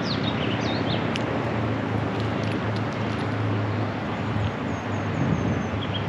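Off-highway vehicle engine running steadily nearby, a low even hum, while small birds chirp, with a short falling run of high notes about five seconds in.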